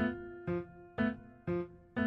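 Background music: pitched instrument notes struck about twice a second in an even beat, each dying away before the next.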